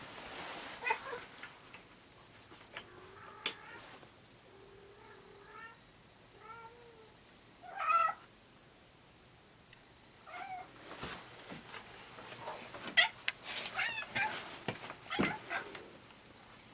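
A stray cat meowing several times, its calls much like a house cat's, the loudest about eight seconds in. Sharp knocks and more calls mix in during the last few seconds.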